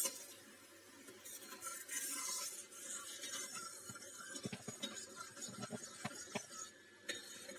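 Steel ladle scraping and clinking against a steel kadai as a thick, simmering jaggery and amchur chutney is stirred; soft irregular clicks, most of them in the second half.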